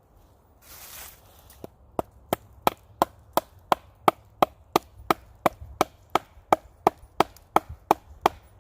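A wooden baton hammering into a dead tree trunk, wood on wood, in an even run of about twenty sharp knocks, roughly three a second, driving a pointed wooden wedge into the cut to break the trunk. A brief rustle comes just before the knocks start.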